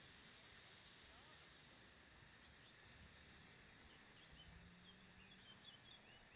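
Near silence: faint outdoor air hiss, with a few faint bird chirps in the second half.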